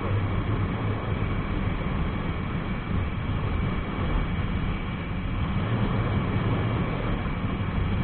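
Jawa 42 motorcycle's single-cylinder engine running steadily at cruising speed, with a low hum under a constant rush of wind and road noise on the action-camera microphone.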